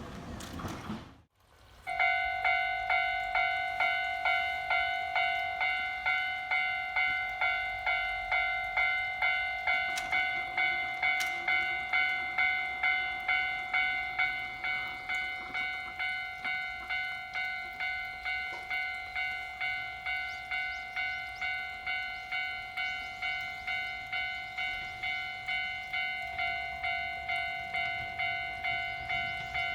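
Japanese level-crossing electronic warning bell ringing steadily at about two strikes a second, signalling an approaching train. The tail of a passing train's running noise fades out in the first second before the bell begins.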